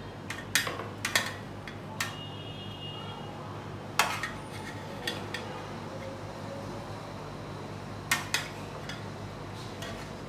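Metal serving spoon clinking and scraping against an aluminium cooking pot as curry is served: a handful of sharp clinks at uneven intervals over a steady low hum.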